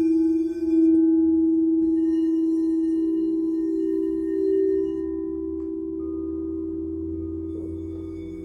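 Several singing bowls ringing together: a deep, sustained tone with a slow wavering beat, with higher ringing tones over it. A new, higher tone enters about six seconds in.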